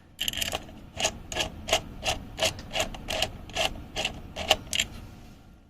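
Screwdriver turning a small screw to fasten a motherboard's M.2 heatsink down, a short scraping click about three times a second that stops a little before the end.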